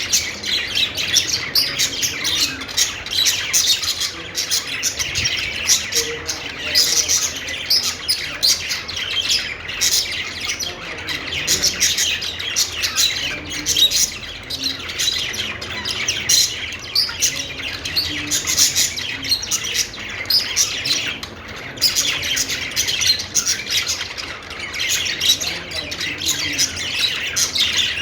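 Budgies (budgerigars) warbling and chattering without a break: a dense stream of quick, high chirps.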